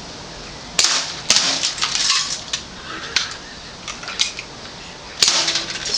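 Sharp clicks and short bursts of hard clattering, like small objects knocking on metal and glass. The loudest come about a second in and again near the end, with single lighter clicks in between.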